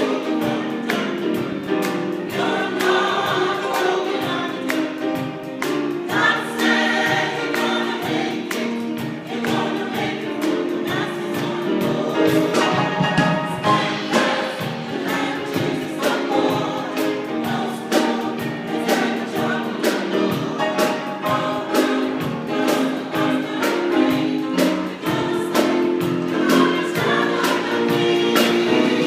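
Gospel choir singing in harmony, with a steady percussive beat under the voices.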